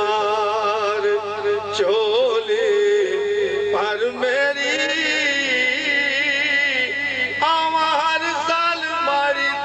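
A man singing amplified devotional verse in long, drawn-out notes with a wavering pitch. One note is held for about three seconds before a new phrase begins.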